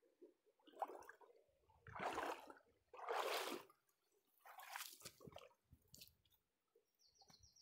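Footsteps in soaked sneakers wading out of shallow river water: about five soft sloshing, squishing steps, roughly one a second.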